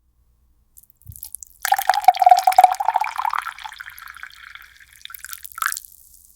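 Water pouring and splashing, starting loud about a second and a half in and tapering off with a last splash near the end.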